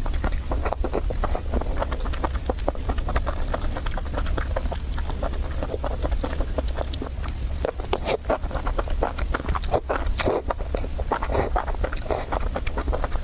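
Close-miked eating: a person chewing and smacking food, a rapid, irregular stream of wet clicks and smacks, over a steady low hum.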